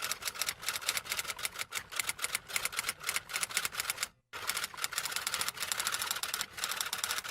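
Rapid typewriter key clicks in two runs, broken by a brief silence about four seconds in.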